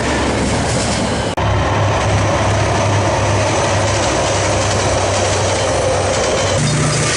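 A train running on the rails: a steady rumble and clatter with a low hum, cut abruptly a second and a half in and changing again near the end, as separate clips are joined.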